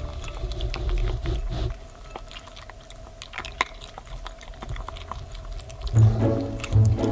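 Pomeranian puppies crunching dry kibble, many small irregular crunches and clicks of the kibble.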